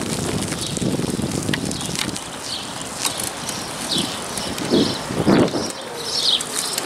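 Footsteps of someone walking on pavement, with wind rumbling on the microphone and birds chirping with short, falling calls.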